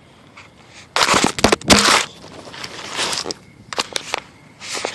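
A phone being dropped and handled: loud knocks and crackling rustle on its own microphone about a second in, then a few softer rustles.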